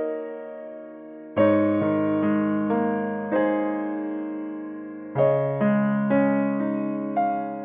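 Background music: slow, gentle piano playing struck chords and single notes that die away, with fresh chords about a second and a half in and again about five seconds in.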